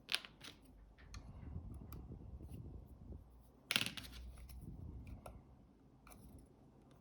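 Faint scraping and small clicks of a flat stick working sticky glue off a camera's shutter flex cable, with one sharper click a little under four seconds in.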